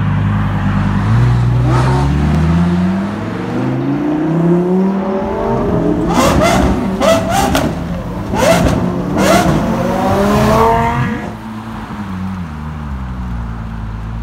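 Supercar engine accelerating, its note rising steadily for several seconds, then a run of quick revs with sharp cracks in the middle, settling to a steady lower running note near the end.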